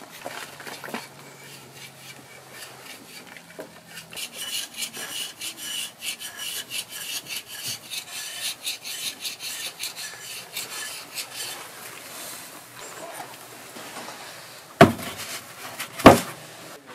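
Quick repeated scraping strokes of a wooden-handled hand tool over a plaster foot cast, cleaning its surface. Near the end, two sharp knocks.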